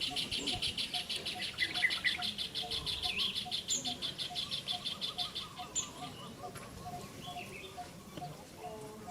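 Bird calls: a rapid high pulsing trill of about nine pulses a second that stops about six seconds in, over a steady low note repeated about three times a second.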